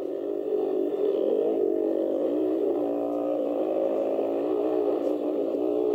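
80cc dirt bike engine running hard under the rider's throttle, its pitch rising and falling as it revs and shifts.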